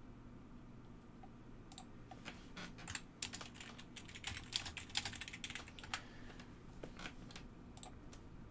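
Typing on a computer keyboard: a quick run of faint key clicks for a few seconds, then a couple of single key presses near the end.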